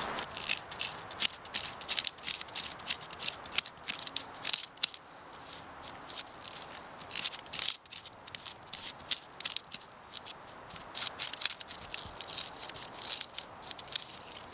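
Knife blade scraping birch bark in quick, irregular short strokes, shaving it into fine tinder for fire-starting, with a short lull about halfway through.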